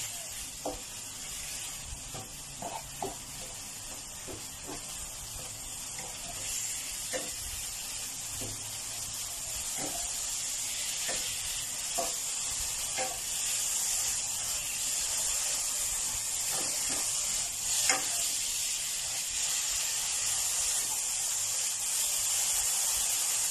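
Minced pork sizzling in a dry non-stick pan without oil, the hiss slowly growing louder as it cooks. A plastic spatula scrapes and taps against the pan at irregular intervals while stirring, with one louder knock about three-quarters of the way through.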